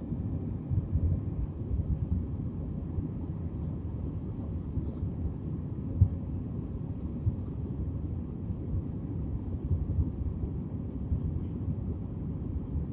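Airliner cabin noise during the climb after take-off on an Airbus A320-family jet: a steady low rumble of engines and airflow through the fuselage, with small swells and one brief thump about six seconds in.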